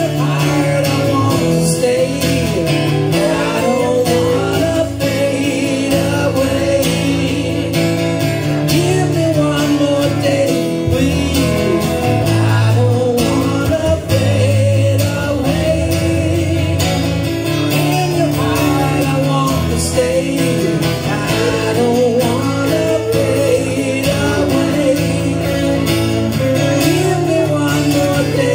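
Live acoustic guitar strummed together with an electric guitar, and a man singing lead vocals over them.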